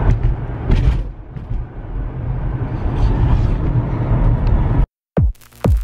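Steady road and engine rumble inside a moving car's cabin, with a few faint clicks. Near the end it cuts off suddenly and electronic dance music with a regular kick-drum beat starts.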